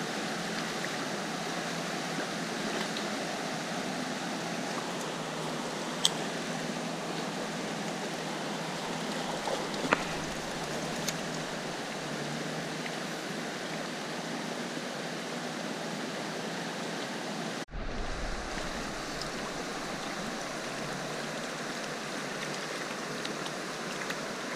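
Steady rush of river water, with a couple of faint clicks and one brief drop-out about two-thirds of the way through.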